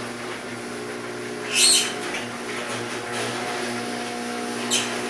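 Garage door opener motor running with a steady hum, giving a short high chirping squeal, a "chipmunk noise", about a second and a half in and a fainter one near the end. The squeal is a worsening fault that the owner says is even louder now.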